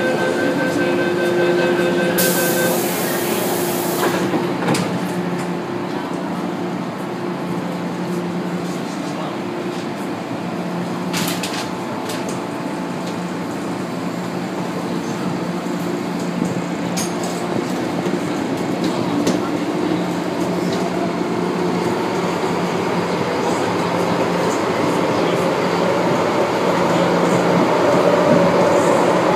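Inside a Metro Cammell M-Train on the MTR Island Line: a door-closing warning tone and a hiss as the doors shut in the first few seconds, then the train pulling away and running through the tunnel with a steady hum and rumble that grows louder toward the end.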